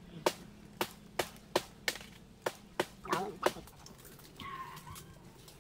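Machete chopping at the stalk of a nipa palm fruit bunch: a run of sharp strikes, about two a second, that stops about three and a half seconds in.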